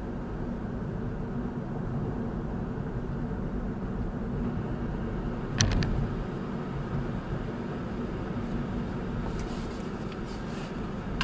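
Steady road and engine noise of a car cruising at about 56 km/h, heard from inside the cabin, with a sharp double click about five and a half seconds in.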